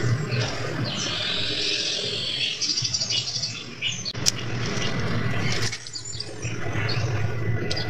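Transformer-type soldering gun humming low and steady as it heats a joint on an aluminium transformer wire, the hum dropping briefly about six seconds in; birds chirp and squawk in the background.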